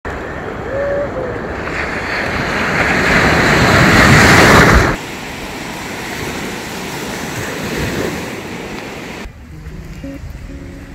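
Sea waves washing onto a beach, with wind buffeting the microphone. The surf builds to its loudest just before five seconds in, then drops off sharply to a steadier wash. About nine seconds in, it gives way to a quieter background with a few faint musical notes.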